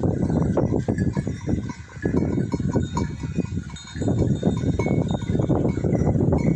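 A grazing flock of sheep and goats, with small metal bells clinking over a rough, rustling noise that drops away briefly twice.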